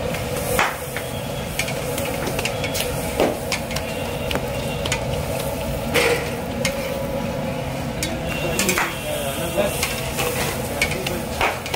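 Bhature deep-frying in a large kadhai of hot oil, a steady sizzle throughout, with the perforated skimmer clinking against the pan about every two or three seconds.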